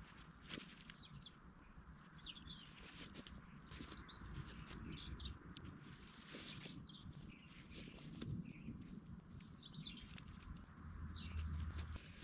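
Woodland birds calling: short, high chirps scattered throughout, over faint rustling.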